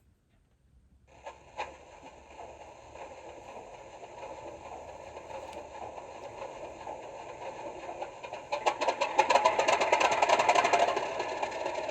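Class 50 diesel locomotive sound file from a model locomotive's sound decoder doing a cold start: the engine fires about a second in and settles to running. From about eight and a half seconds it swells louder with a rapid clatter, then eases back near the end.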